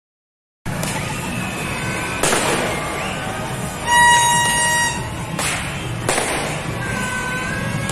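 Noisy street-celebration din: a horn blown in one loud, steady note about four seconds in, the loudest thing, over a constant hubbub with scattered higher tones and several sharp bangs like firecrackers.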